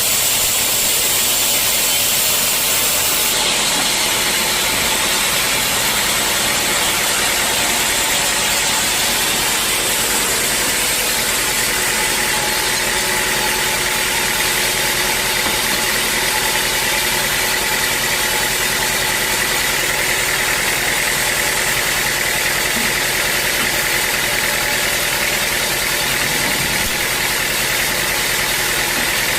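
Sawmill machinery running steadily, a loud even noise with a faint steady whine.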